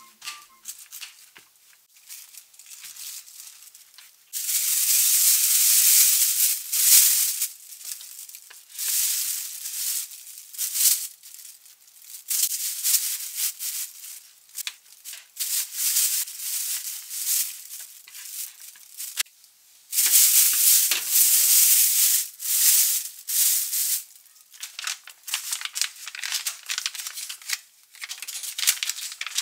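A thin plastic bag crinkling and a paper towel rustling as hands handle them, in irregular bursts. The longest, loudest stretches come about five seconds in and again about twenty seconds in.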